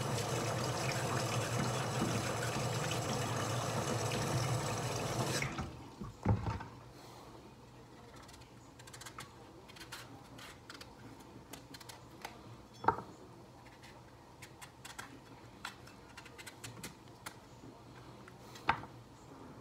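A steady rushing noise, like running water, cuts off suddenly about five seconds in. After that, soft clicks and scrapes of a kitchen knife paring breadfruit by hand, with a few sharper knocks.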